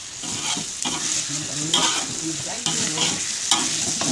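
Fish pieces in spice sauce frying in a metal wok with a steady sizzle. A spatula stirs them, scraping and knocking against the wok at irregular moments.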